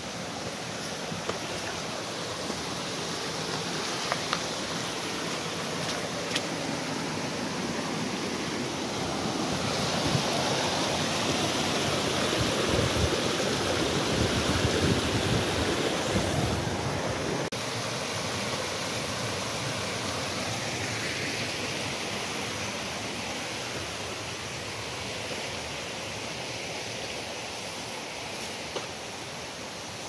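Steady rushing of a waterfall, swelling louder about ten seconds in and easing back after about seventeen seconds, with a few sharp clicks in the first several seconds.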